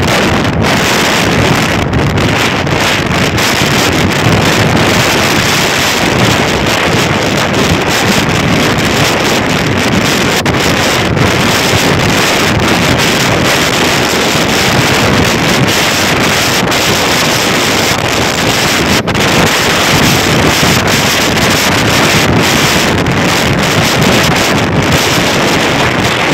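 Loud, steady wind noise buffeting the microphone, with no distinct engine tone or voices standing out.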